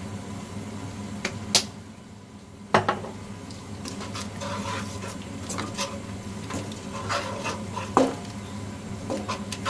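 A wooden spatula scraping around a white nonstick wok as a thick onion sauce is stirred. There are a few sharp knocks of the spatula against the pan.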